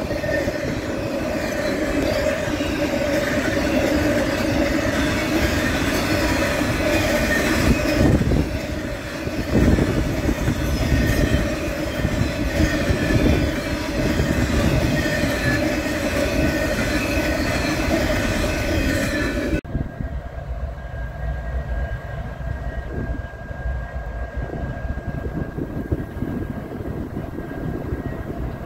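Double-stack intermodal freight train rolling past close by, a steady loud rumble of wheels on rail. About two-thirds through it cuts off suddenly to the quieter, steady sound of two diesel locomotives idling, a Union Pacific SD70M and a Norfolk Southern ES44AC.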